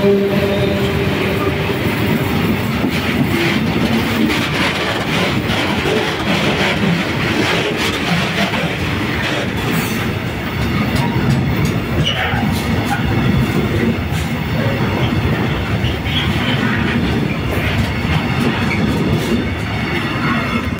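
A freight train of Eanos open wagons rolling past at close range: a steady loud rumble of wheels on rail, with irregular clicks as the wheels cross rail joints. A faint steady hum from the passing diesel locomotive fades out in the first second or two.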